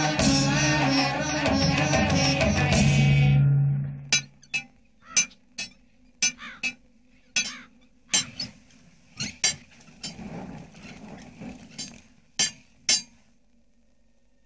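Indian film music plays for about four seconds, then stops. It gives way to about fifteen irregular, sharp, ringing strikes of hammers on metal in a metalworking yard, which stop about a second and a half before the end.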